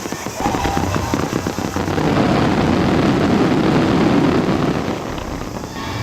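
Fireworks shells bursting overhead in a dense, rapid barrage of many pops and crackles, building to its loudest midway and easing near the end.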